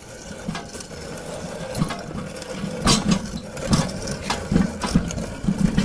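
Irregular clanks and rattles over a steady hum, loudest about three and four seconds in.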